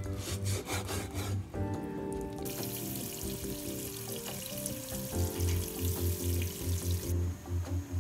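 A cleaver chops pork on a wooden board in quick strokes for the first second and a half. From about two and a half seconds in, tap water runs steadily onto bean sprouts in a plastic basin, stopping abruptly a little after seven seconds. Instrumental background music plays throughout.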